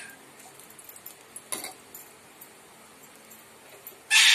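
A steel spoon scraping and clinking against a metal tawa while spreading dosa filling: three short scrapes, the last and loudest near the end.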